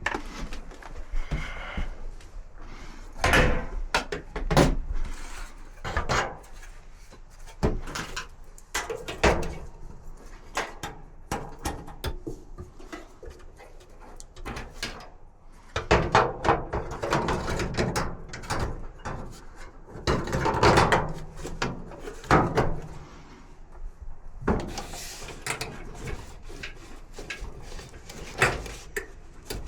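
Irregular knocks, clunks and rattles of dryer parts and tools being handled during the repair work.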